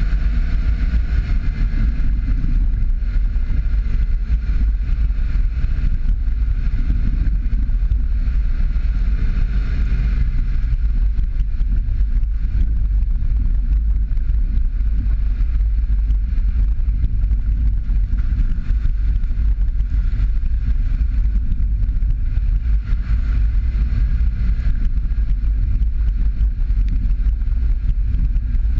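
Jeep Patriot driving along a wet dirt track: a steady low rumble of engine, tyres and wind noise that keeps on without a break.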